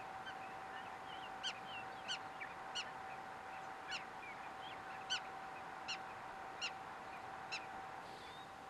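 Black-tailed prairie dog barking: a series of about eight short, sharp, nasal calls, roughly one a second, the repeated bark a prairie dog gives as an alarm. Under them runs a faint steady tone.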